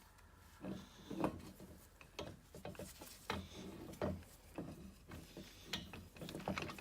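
Scattered light metallic knocks and clicks, with some rubbing, as a ball joint / U-joint press is handled and fitted onto a driveshaft yoke.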